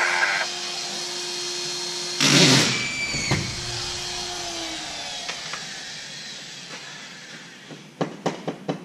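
A drywall screw gun drives a screw into 5/8-inch fire-rated drywall about two seconds in: a short, loud burst with a motor whine that stops abruptly, then a falling whine as the motor winds down. Near the end comes a quick series of sharp knocks.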